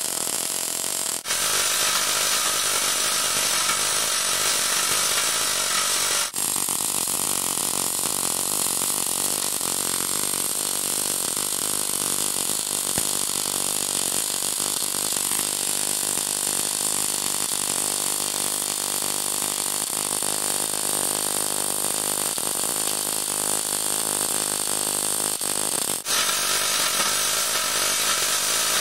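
Steady crackling hiss of an automated MIG (coldArc short-circuit) welding arc laying a root pass around a steel pipe. The sound jumps abruptly to a slightly different character about a second in, about six seconds in and near the end.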